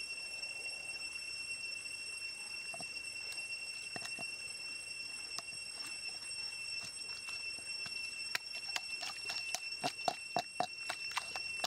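A spoon working chilli marinade over crocodile meat in a metal wok: soft scattered taps, then a quick run of sharp clicks and knocks against the pan in the last few seconds. A steady high-pitched whine sits behind it.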